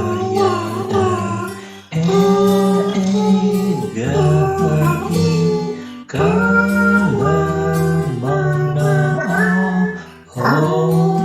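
A song sung over instrumental backing, in phrases of about four seconds with short breaks between them.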